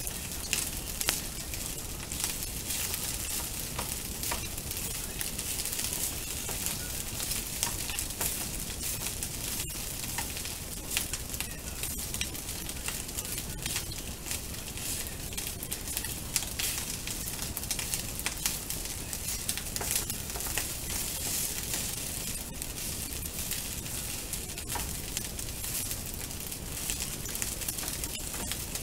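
Egg fried rice sizzling steadily in a frying pan, with frequent light clicks and scrapes as a slotted plastic turner stirs and turns it against the pan.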